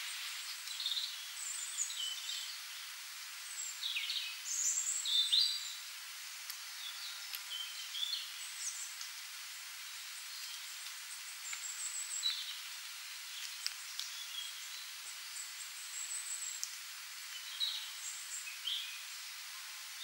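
Birds chirping in scattered short, high calls and quick falling notes over a steady hiss, with no low sound at all.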